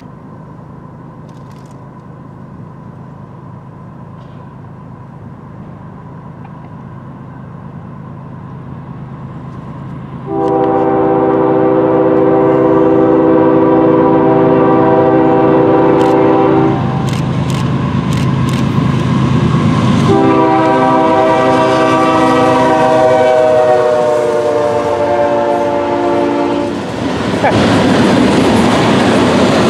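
CSX freight train approaching with a growing low rumble, then the locomotive's multi-note air horn sounds two long blasts, about ten and twenty seconds in, each lasting some six seconds; the chord drops slightly in pitch at the end of the second blast as the locomotive passes. The loud noise of the train going by follows near the end.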